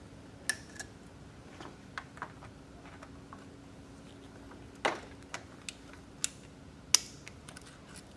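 Scattered sharp clicks and knocks, about ten in all with two louder ones past the middle, as hose clamps are squeezed and coolant lines pulled off a Mustang's plastic coolant tank. A faint steady hum runs underneath.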